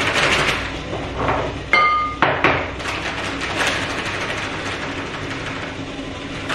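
Tapioca flour being measured out with a drinking glass: rustling and scraping of the flour and its bag, with a sharp glass clink about two seconds in that rings briefly.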